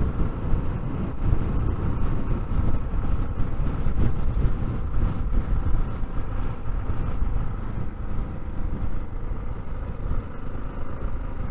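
Honda XR600R's single-cylinder four-stroke engine and wind rush at about 55 mph, heard through a microphone inside the rider's helmet with the face shield down: a steady low rumble that eases slightly near the end as the bike slows.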